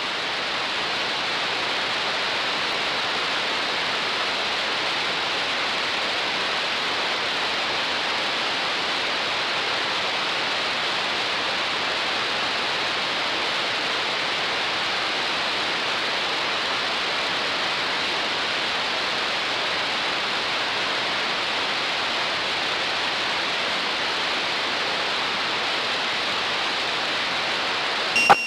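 Steady hiss of television static, unchanging, cut off by a brief loud burst at the very end.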